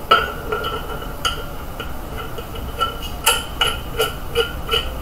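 Metal clicks and clinks from bolts, nuts and a metal antenna mounting bracket being fitted together by hand. There are a couple of single clicks, then a quick run of about four clicks a second from about three seconds in, each with a short metallic ring.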